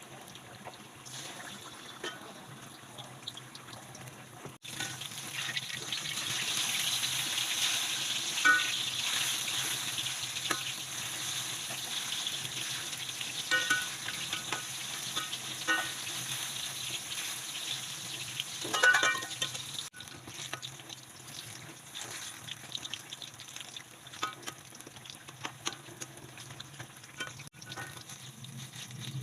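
Thin banana slices frying in hot oil, a steady sizzle with occasional sharp clinks of a utensil against the pan. The sizzle grows louder about 5 seconds in and eases back after about 20 seconds.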